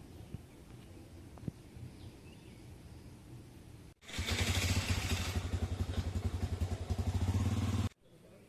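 Motorcycle engine running close by, a fast even pulsing putter, starting abruptly about four seconds in and cutting off suddenly near the end; before it, only quiet outdoor background with a single click.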